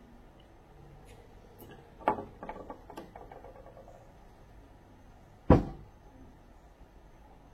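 Hard knocks and clinks of steering rack parts and hand tools being handled: a sharp knock about two seconds in with a quick run of lighter clinks after it, then a louder single knock later on.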